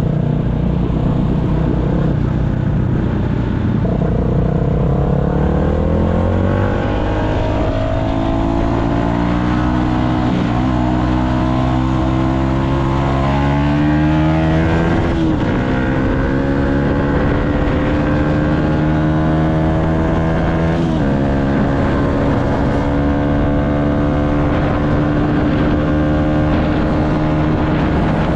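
Yamaha MT-125's single-cylinder four-stroke engine under way. The revs climb, the pitch drops at gear changes about 15 and 21 seconds in, and it holds a steady pitch near the end.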